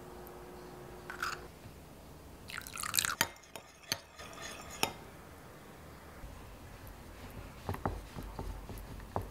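Metal spoon stirring egg yolk and water in a glass bowl, with a few sharp clinks against the glass about three to five seconds in. Near the end, soft knocks of a wooden rolling pin working pastry dough on a wooden board.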